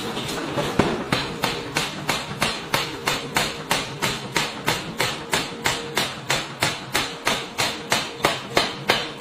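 Pneumatic forging hammer pounding a red-hot steel block, with rapid, evenly spaced blows at about three a second that begin about a second in.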